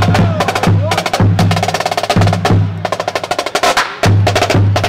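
Marching band playing: rapid snare-drum strokes and rolls over a low bass note repeating about twice a second, with horns.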